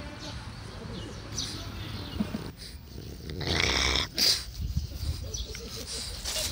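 An old French bulldog breathing and snuffling close to the microphone, with one loud noisy breath lasting about half a second, roughly three and a half seconds in.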